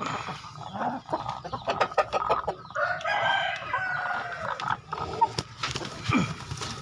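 Chickens clucking, with one rooster crow of about a second and a half starting about three seconds in, among many short irregular clicks.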